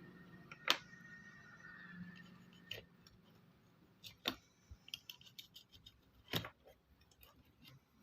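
Scattered light clicks and taps of a test lead and wires being handled on a set-top receiver's circuit board, with a faint steady high tone in the first couple of seconds.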